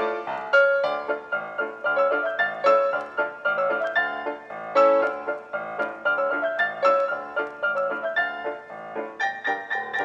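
Background piano music, a continuous run of notes.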